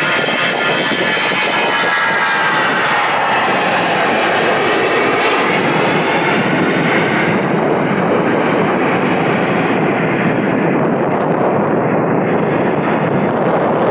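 Airbus A320-214's CFM56 jet engines at take-off thrust as the airliner lifts off and climbs away. Several high whining fan tones slide down in pitch over the first seven seconds or so as it passes, leaving a steady, loud rumbling jet noise.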